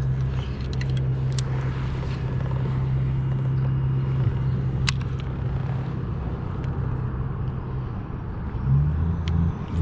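Drive of a Hobie Pro Angler 14 fishing kayak running steadily while trolling: a low hum over a hiss of water and wind, the hum changing pitch near the end, with a single sharp click about five seconds in.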